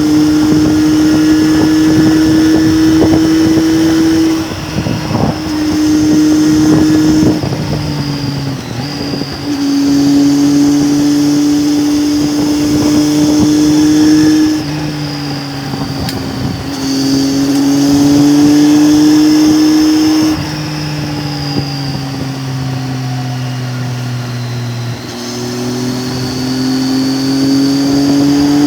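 Triumph Tiger 800's three-cylinder engine running under way, a steady engine note that quietens several times as the throttle is eased, its pitch sagging, then builds and climbs again near the end.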